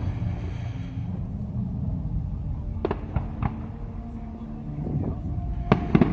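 Fireworks shells bursting in the distance: a few sharp bangs about three seconds in and another cluster near the end, over a low rumble.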